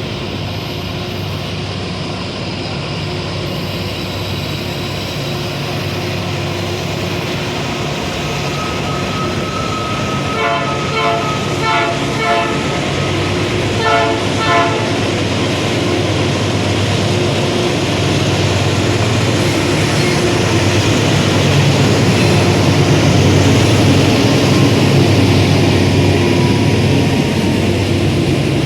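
A train running past and growing louder, its locomotive horn sounding a few short blasts about ten seconds in and another shortly after.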